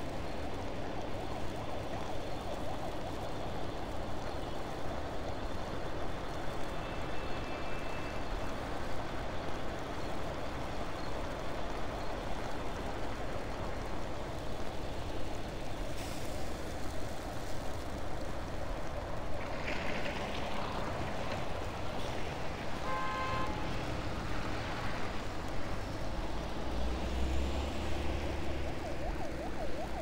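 City traffic on a snowy street: a steady wash of cars and taxis driving past on slushy road. A few short pitched tones rise above it about two-thirds of the way through, and a deeper rumble of a passing vehicle comes near the end.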